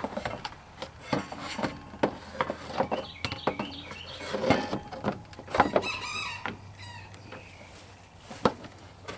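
Plastic radiator fan shroud being worked into place around the radiator and heater hose: a string of irregular knocks, clicks and scrapes, with a brief squeak about six seconds in.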